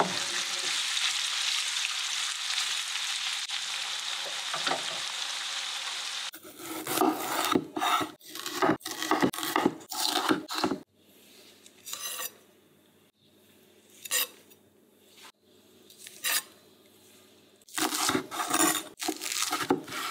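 Smoked duck, onion and chili sizzling in a frying pan as they are stirred. After about six seconds this gives way to a chef's knife slicing yellow bell pepper and then perilla leaves on a bamboo cutting board: quick runs of sharp chopping strokes with short pauses between them.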